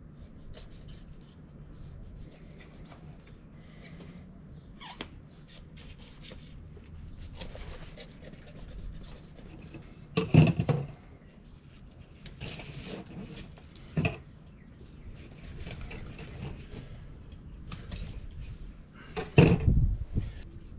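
Knife cutting and scraping through the flesh and bones of a southern bluefin tuna on a plastic folding table, with a few louder knocks as the fish is handled: about halfway through, again a few seconds later, and a cluster near the end.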